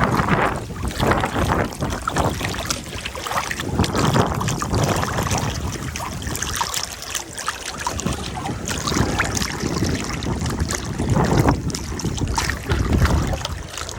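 Wind buffeting the microphone over moving river water, with scattered small knocks and splashes from a boat on the water.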